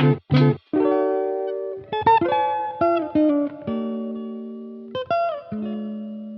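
Background music: picked guitar notes that ring and slowly fade, one or a few at a time, with a couple of bent notes.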